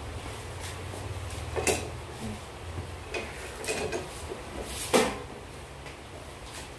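Hard plastic clicks and knocks as parts are handled and fitted against the plastic back of a flat-screen TV lying face down: a handful of separate knocks, the loudest about five seconds in.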